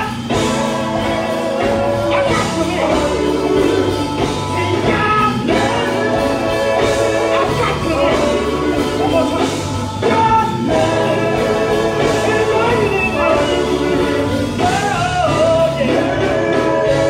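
A live gospel group singing with band accompaniment, steady instrumental backing under the voices and amplified through the church sound system.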